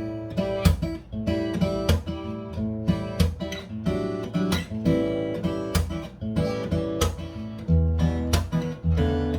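Taylor 714ce X-braced acoustic guitar being played solo, strummed and picked chords ringing out with low bass notes, the attacks coming irregularly several times a second.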